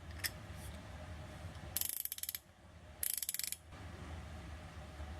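Gedore reversible ratcheting combination wrench being worked back and forth: two short bursts of rapid fine clicking from the ratchet mechanism, about a second apart, after a single faint click near the start.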